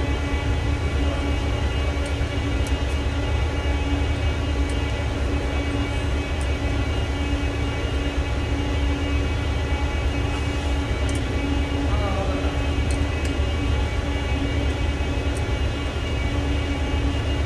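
Steady low drone of running machinery with several steady tones over it, and a few faint ticks as the hydraulic hose coupler is fitted to the die clamp.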